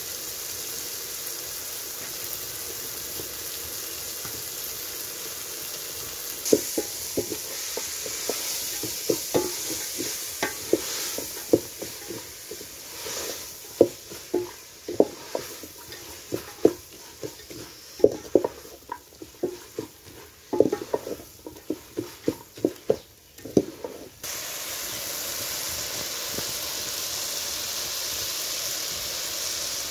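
Shredded cabbage sizzling in a metal pot, with a wooden spoon stirring it and knocking irregularly against the pot's sides from about six seconds in until about three-quarters of the way through.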